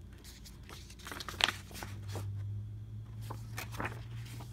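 Paper rulebooks and cardboard being handled: a series of rustles and light taps, the sharpest about a second and a half in, over a low steady hum.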